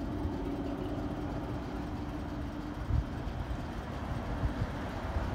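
Distant diesel freight locomotive running unseen, a steady low drone that fades after two or three seconds, under wind buffeting the microphone with a gust about three seconds in.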